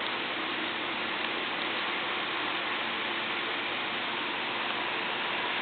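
Steady, even hiss of background noise, with only a few faint small ticks in it.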